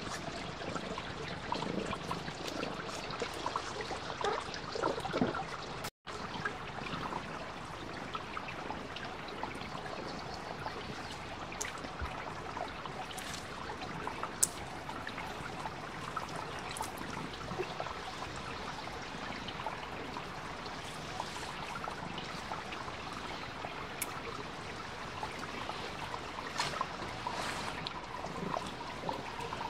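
Small mountain stream trickling over stones, a steady babble with scattered small clicks, cutting out for an instant about six seconds in.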